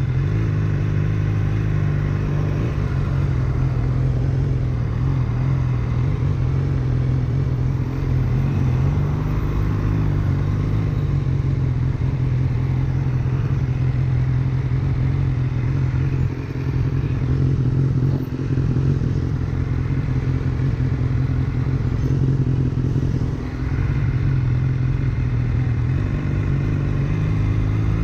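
BMW S1000R inline-four engine running steadily at low cruising revs as the bike rides along. The engine note dips briefly three times, and near the end it starts to climb as the bike accelerates.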